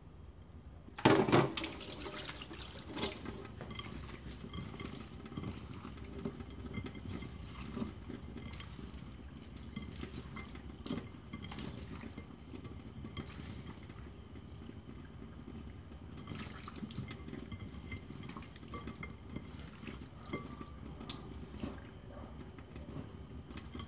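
Hands mixing chunks of raw pork leg with vinegar and seasonings in a bowl: wet, irregular squelching with small clicks, and a louder knock about a second in.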